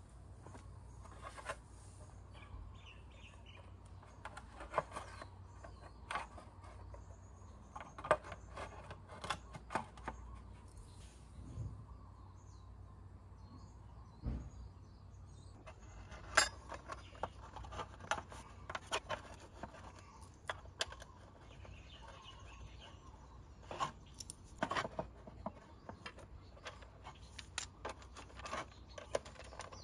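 Scattered clicks, taps and knocks as a plastic scooter front fender panel is handled and fitted into place and small metal screws are handled. Near the end a Phillips screwdriver turns a screw into the fender.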